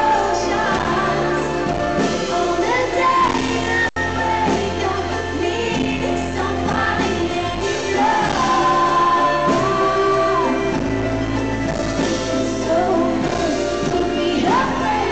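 Female pop singer singing live with her band in a large hall, holding long notes over a steady backing. The sound cuts out for an instant about four seconds in.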